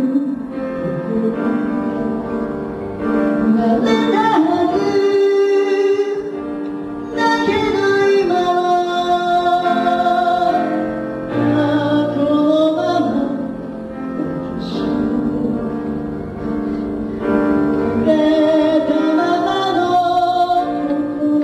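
A song with a sung melody over instrumental backing, phrase after phrase.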